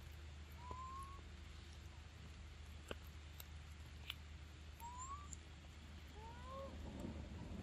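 Faint short rising squeaks from a baby macaque: one about a second in and two more in the second half, over a steady low hum, with two faint clicks in the middle.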